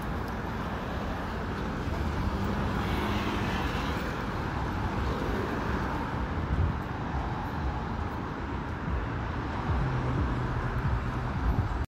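Steady outdoor city background noise: a constant traffic rumble from the nearby street, without clear separate events.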